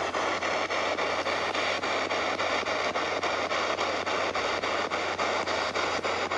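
Spirit box sweeping through radio stations: steady radio static broken by a regular click several times a second as it steps from station to station, over a low steady hum.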